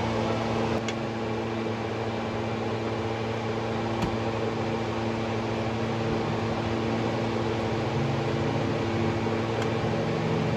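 A steady mechanical hum with several fixed tones and no change in pitch, with a faint click about four seconds in.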